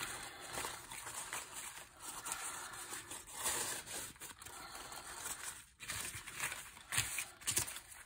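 Brown packing paper crumpled, wrinkled and smoothed out by hand: irregular crinkling and rustling, with a few sharper crackles near the end.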